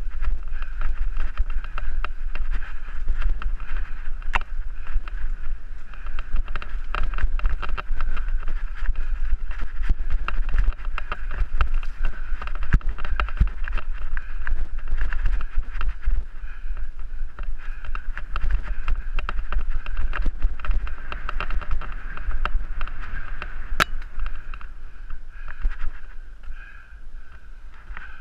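Mountain bike ridden fast on a dirt trail: wind buffeting the helmet camera's microphone, with a constant clatter of small knocks and rattles from the bike over rough ground. It grows quieter in the last few seconds.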